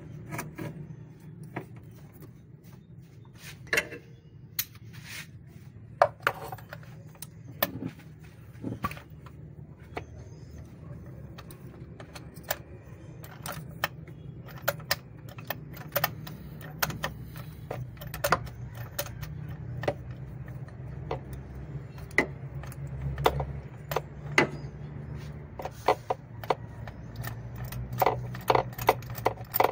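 Hand tools and metal parts clicking and clinking irregularly while parts are taken off the engine, over a steady low hum.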